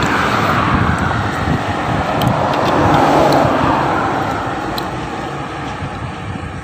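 A road vehicle passing by: its tyre and engine noise swells to a peak about three seconds in, then fades away.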